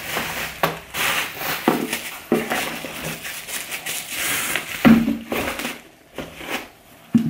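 Clear plastic bag crinkling and rustling as it is handled, with a couple of soft knocks, one about five seconds in and one near the end.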